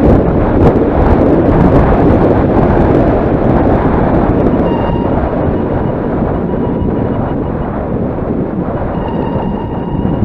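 Heavy wind buffeting on the camera's microphone during a fast downhill ride: a loud, steady low rumbling rush. From about halfway it eases a little and a faint thin whine comes in.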